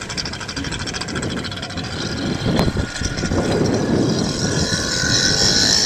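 The small engine of a Power-Ski personal watercraft running with a fast, even buzz as the craft motors along, growing gradually louder, with water churning around the hull and one sharp knock near the middle.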